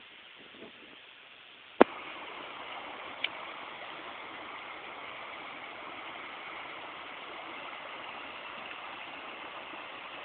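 Creek water rushing steadily. A sharp click about two seconds in, after which the rushing is louder, and a fainter click a second and a half later.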